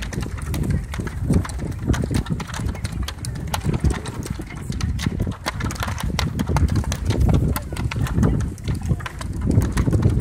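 Wind buffeting the microphone: an uneven low rumble, with irregular sharp clicks and crackles scattered throughout.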